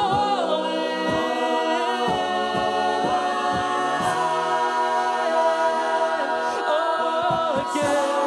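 A cappella group singing sustained chords in close harmony, with vocal percussion adding a low kick every second or so underneath. A solo voice sings the word "falling" near the end.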